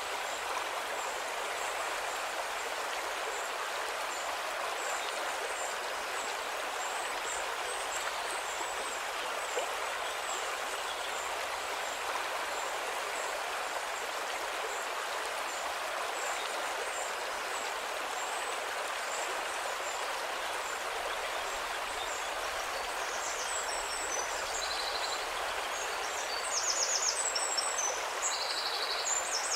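River water rushing steadily over its bed. Faint high chirps run through it, and a few louder short high-pitched chirps come near the end.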